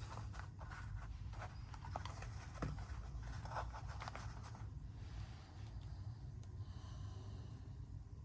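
Faint handling noises: a scatter of soft clicks and rustles in the first few seconds, then quieter, over a steady low hum.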